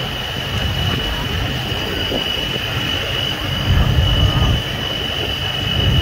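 Wind buffeting the microphone in a snowstorm: an uneven low rumble that swells about two-thirds of the way in and again near the end, under a steady high-pitched whine.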